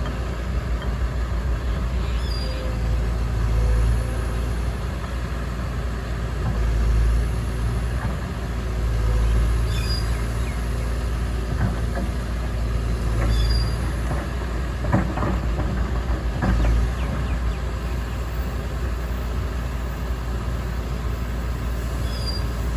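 Excavator's diesel engine running steadily and swelling under load every few seconds as the machine works, with a few short high squeaks and one sharp knock about fifteen seconds in.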